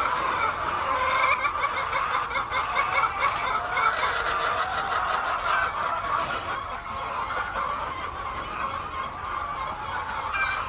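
A large flock of chickens clucking and calling all at once, a dense, steady chorus of many overlapping voices.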